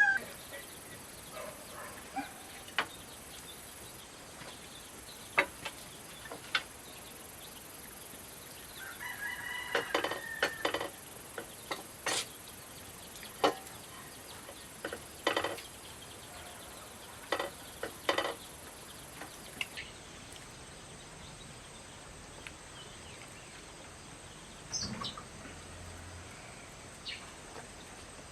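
Scattered clinks and knocks of kitchen work, single sharp strikes every second or two, with a chicken calling briefly about ten seconds in.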